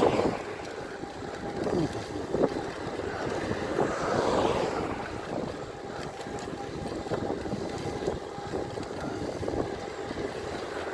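Wind buffeting the microphone of a moving e-bike, mixed with tyre and road noise, rising in a broad swell about four seconds in. A faint steady whine runs under it.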